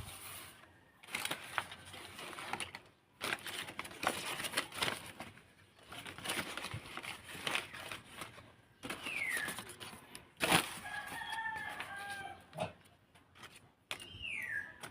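A rooster crowing once, about eleven seconds in, with short falling chicken calls before and after. Rustling and clicking handling noises run throughout.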